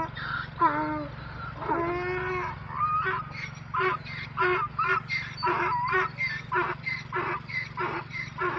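Donkey braying: a few drawn-out calls that bend in pitch, then a quick run of short alternating hee-haw notes, about three a second.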